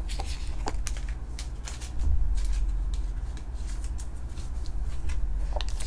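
Trading cards being handled in clear plastic sleeves: scattered soft clicks, slides and crinkles of card stock and sleeve plastic.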